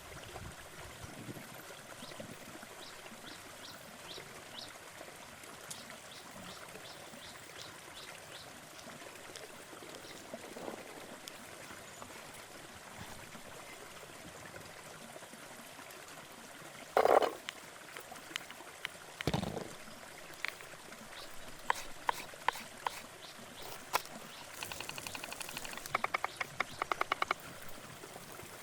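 Steady outdoor water ambience with faint repeated chirps, broken in the second half by two loud knocks and then scattered sharp clicks and a run of quick, even taps from food preparation.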